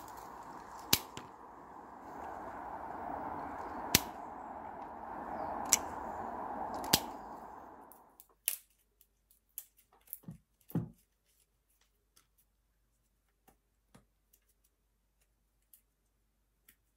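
Hand pruning shears snipping cramp bark (guelder rose) stems: four sharp snips over a steady background hiss. About eight seconds in the hiss stops, leaving only faint scattered clicks and rubs of bark being peeled from the cut stems by hand.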